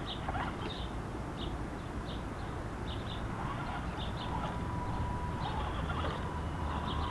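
Axial SCX10 DeadBolt RC rock crawler's electric motor whining thinly and steadily from about four seconds in as it works to climb a rock. Through it, small birds chirp in short, repeated high calls.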